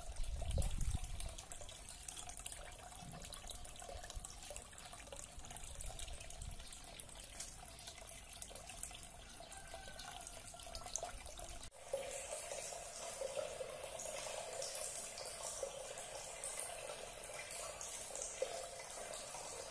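Water pouring steadily from two tube spouts and splashing into a small fish tank, a continuous trickling. A short low rumble comes near the start. About twelve seconds in the sound cuts to a closer, brighter run of splashing and bubbling water.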